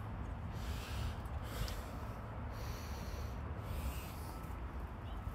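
A man breathing hard and audibly close to the microphone, several breaths in a row, catching his breath after exertion.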